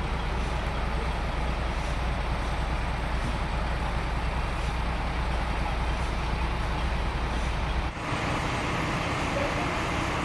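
Sawmill machinery running with a steady, loud mechanical noise and a deep hum. About eight seconds in the sound changes abruptly: the hum drops away and a brighter, hissing noise takes over.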